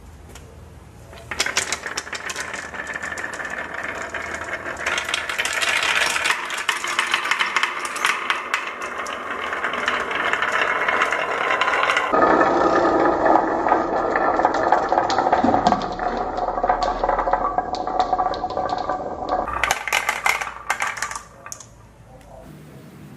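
Many marbles rolling and clattering down a wooden HABA marble run, a dense continuous rattle of small clicks that starts about a second in and stops near the end.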